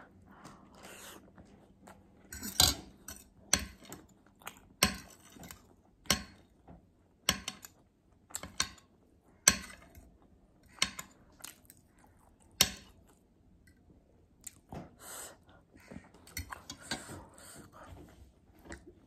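Close-miked chewing of a chicken momo, with sharp wet mouth smacks about once a second, along with a fork and spoon clinking and scraping on a ceramic plate.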